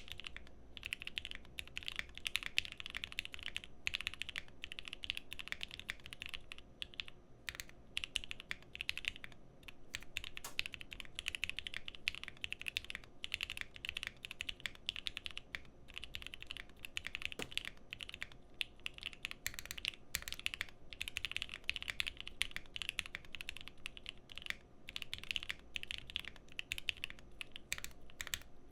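Fast, continuous typing on a mechanical keyboard during a typing-speed test: a dense stream of key clacks with only brief pauses, at about 72 words per minute.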